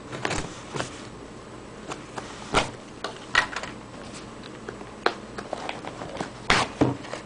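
A box being opened and unpacked by hand: irregular rustling and handling noise with scattered clicks and a few sharper knocks.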